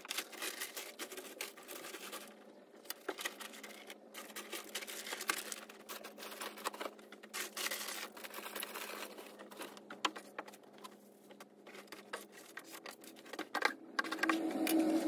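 Rustling of plastic bags and paper with scattered small knocks and clicks as art supplies are handled and set down, over a faint steady hum that stops about twelve seconds in. The handling gets louder near the end.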